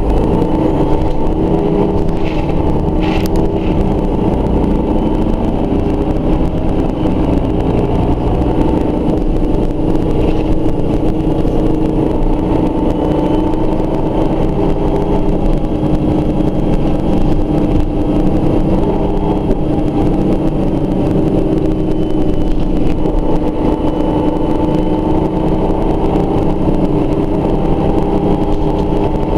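Mercedes-Benz O 405 N2 city bus running, its rear engine and drivetrain heard from inside the rear of the passenger cabin as a steady drone with slightly drifting tones. There is a short click about three seconds in.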